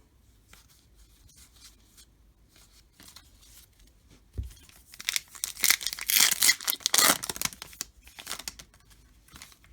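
Foil wrapper of a baseball card pack being torn open and crinkled, loudest from about five to eight seconds in, after a soft thump and a few quiet rustles.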